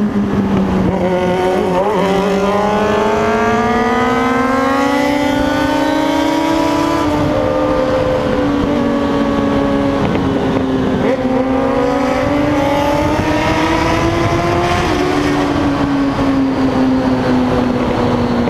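Suzuki Bandit motorcycle's inline-four engine running loud through a Scooby aftermarket exhaust. Its pitch climbs as it accelerates and drops sharply at gear changes about seven and fifteen seconds in.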